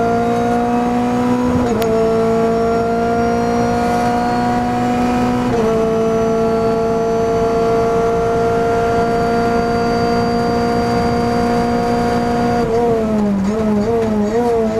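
Renault Clio Cup race car's four-cylinder engine heard from inside the cabin at full throttle. It upshifts about two and six seconds in, each shift dropping the pitch before it climbs again, with a click at the first shift. Near the end the note falls and wavers as the car brakes and downshifts.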